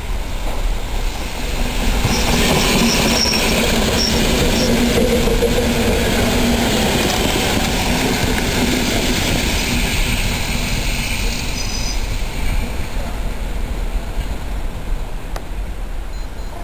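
PKP EN57 electric multiple unit passing close by, its traction motors humming over steady wheel-on-rail noise, with brief high wheel squeals a few seconds in and again about twelve seconds in; the sound fades as the train draws away.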